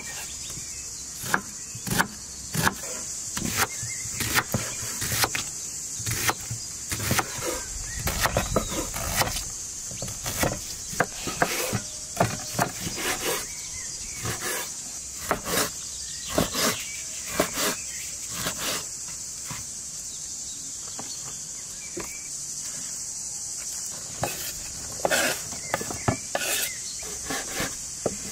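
Large kitchen knife cutting on a wooden cutting board: irregular sharp knocks as the blade goes through red onion and then chunks of lamb meat, thinning out for a few seconds about two-thirds through. A steady high insect drone, like crickets, runs underneath.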